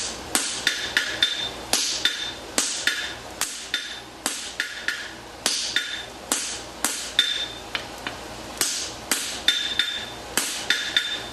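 Farrier's hammer striking a creaser to cut a square bar of steel stock on the anvil: sharp metal blows at about two a second, many with a brief ring.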